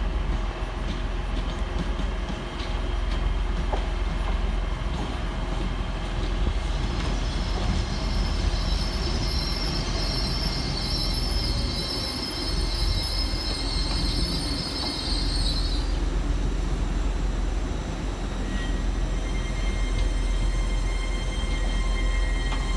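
Class 802 bi-mode train arriving: a steady low rumble of wheels and running gear, with a high wheel squeal on the curved track from about a third of the way in until just past halfway. A steady high tone comes in near the end.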